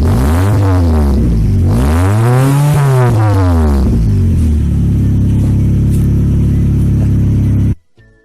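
Vehicle engine running through an exhaust fitted with a fake turbo whistle, revved up and back down twice, then idling steadily until it cuts off suddenly near the end.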